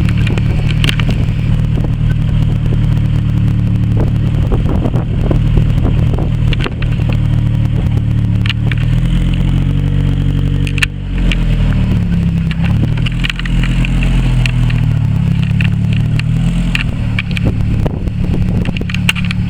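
Car engine running close by, its note dropping and rising again about halfway through as the car is manoeuvred, with scattered crackles and clicks over it.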